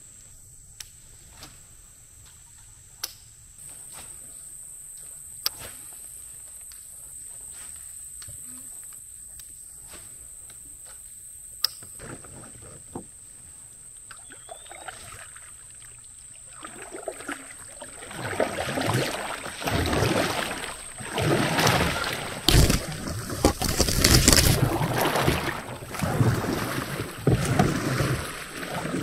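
Double-bladed kayak paddle dipping and pulling through the water in a run of uneven strokes that start a little past halfway and are the loudest sound. Before that, only a few faint sharp ticks.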